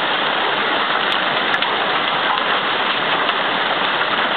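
Severe hailstorm: hail and heavy rain pelting down in a dense, steady hiss.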